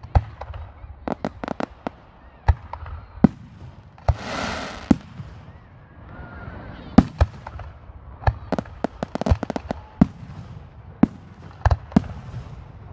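Aerial fireworks shells bursting: a string of sharp bangs and cracks at irregular intervals, thickening in the second half. About four seconds in there is a rushing hiss lasting about a second.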